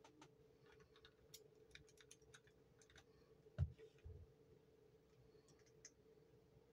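Scattered light clicks and ticks of hands handling a plastic resin mold, then a dull thump about three and a half seconds in, with a softer one just after, as a spray bottle is set down on the work table. A faint steady hum runs underneath.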